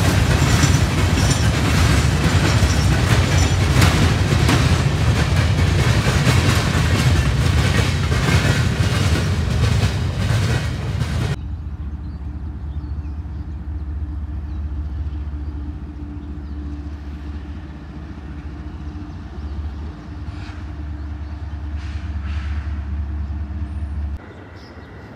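Freight train rolling past close by, the wheels of covered hopper and tank cars rumbling and clicking over the rail joints. About halfway through it cuts off suddenly to a much quieter, steady low rumble of the train heard farther off, with a faint steady hum.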